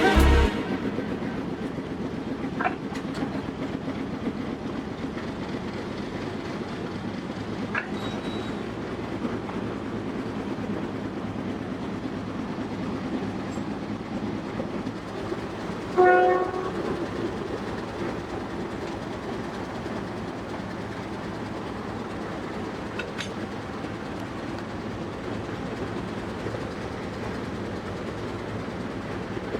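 Steady rumble of a train standing or moving slowly at a station, with a few faint clanks and one short horn blast about halfway through.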